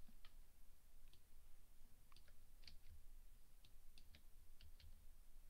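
Faint, scattered clicks of a computer keyboard: about a dozen light keystrokes at an uneven pace, several close together in the second half.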